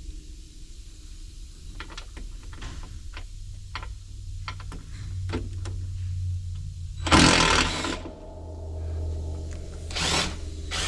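Workshop sounds from work on a semi truck: scattered tool clicks and knocks over a steady low motor hum, with a loud power-tool burst lasting about a second near the middle and a shorter one near the end.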